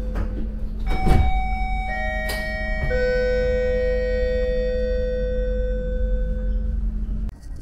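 Station announcement chime, three ringing notes about a second apart, each lower than the last, left to die away slowly, over a steady low rumble. The sound cuts off abruptly near the end.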